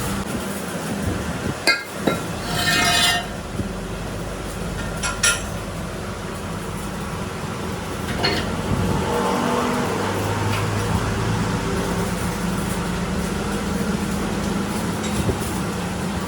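Metal clinks a few times in a workshop, with one short ringing clang about two and a half seconds in, over a steady machine hum.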